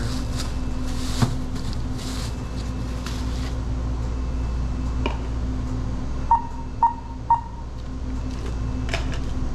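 Three short electronic beeps from the checkout register or card terminal, about half a second apart, over a steady low hum. Before them, bags rustle as the purchase is packed.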